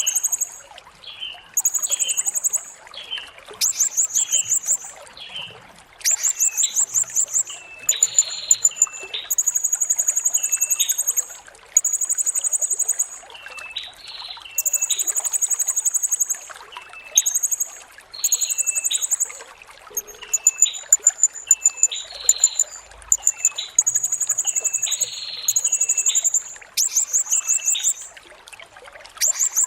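Blue-crowned hanging parrot (serindit) calling over and over: shrill, high, rapidly pulsed trills of about a second each, with short lower chirps between them.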